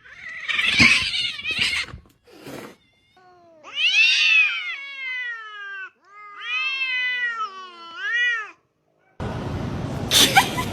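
A cat yowling: two long, drawn-out cries that rise and fall in pitch, after a short rough burst of sound at the start.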